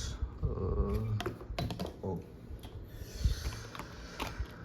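Handling a speed cube's small retail box and its packaging: a string of irregular clicks, taps and light rustles.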